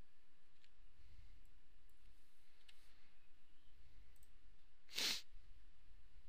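A few faint clicks from working a computer mouse and keyboard, over a low steady room hum. About five seconds in comes one short, louder puff of noise.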